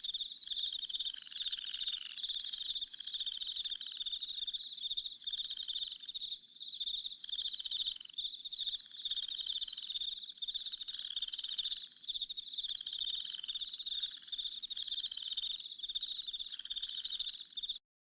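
Rainforest night chorus of frogs and insects: overlapping pulsing trills, high-pitched and repeating about once a second, stopping abruptly near the end.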